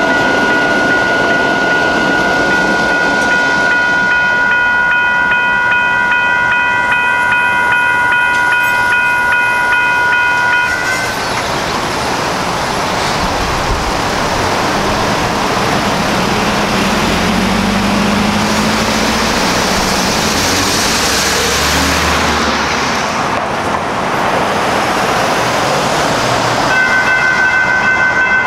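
Grade-crossing warning bells ringing steadily, then, about eleven seconds in, the bells give way to the rushing wheel and rail noise of a light rail train passing over the crossing, with a low rising motor tone partway through. The crossing bells ring again near the end.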